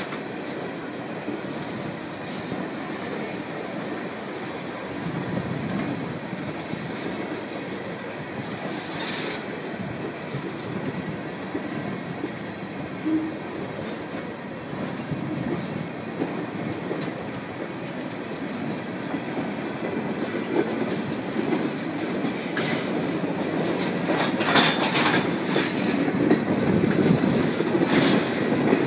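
Freight train cars rolling past on the rails: a steady rumble with wheel clatter, and brief sharp metallic sounds about nine seconds in and several more near the end, as the sound grows louder. No horn is sounding.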